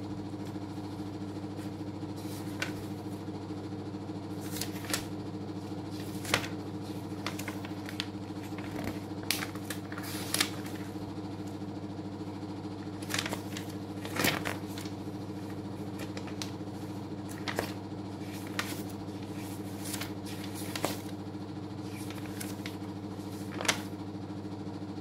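Short, light clicks and rustles at irregular intervals, from hands handling something at a desk, over a steady low hum.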